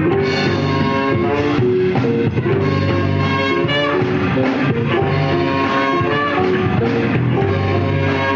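Live funk-jazz band playing, with electric guitar, horns and drum kit.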